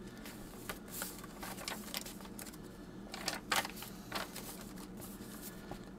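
Heavy paper pages of a handmade junk journal being turned and handled by hand: irregular soft rustles and light taps, the sharpest about three and a half seconds in, over a faint steady hum.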